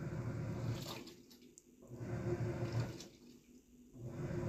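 Black & Decker BPWM09W portable washing machine agitating a load in its wash cycle: the drum turns in three bursts of about a second each, with short pauses between, a low motor hum under water sloshing through the clothes.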